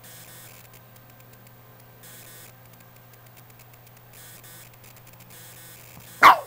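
Boston terrier puppy under a couch giving one short, loud yip about six seconds in, after a few seconds of faint rustling over a low steady hum.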